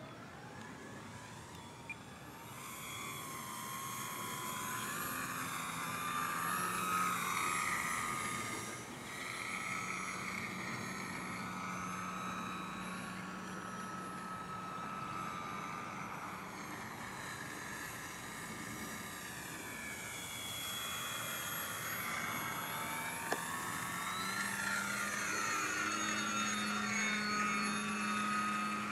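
Aerokinetix Yak 55M Pro radio-controlled aerobatic model plane in flight, its motor and propeller giving a high whine of several tones. The whine comes in about two seconds in and rises and falls in pitch all the way through as the throttle changes.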